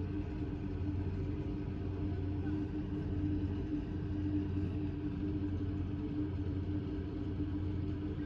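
An engine on tree-service equipment running steadily at a constant speed, a low, even hum with no revving.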